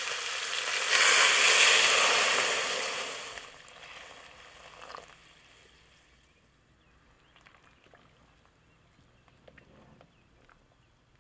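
Lamb and whole spices sizzling in a hot steel pot: a loud, even hiss that swells about a second in, then dies away over the next few seconds, leaving only a few faint ticks.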